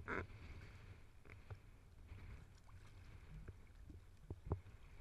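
Faint sea water lapping and sloshing around a camera held at the surface, with a few small splashes and a low steady rumble underneath.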